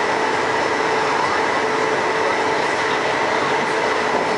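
Rubber-tyred Bombardier metro train of the Taipei Wenhu Line running at speed: steady rolling noise with a constant whine on top. The uploader notes that this train makes an abnormal noise while running.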